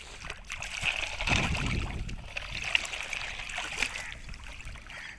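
Shallow water sloshing and splashing as plastic toy vehicles are pushed through it, with a louder slosh about a second and a half in and a few small clicks.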